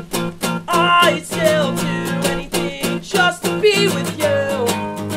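Acoustic guitar strummed in a steady rhythm, with a male voice singing a pop-punk melody over it from about a second in.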